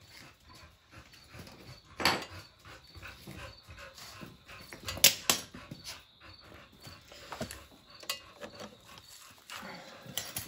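Jumper-cable clamps being unclipped and handled: a few sharp clicks and clanks, the loudest about two, five and eight seconds in, with quieter rustling and handling noise between.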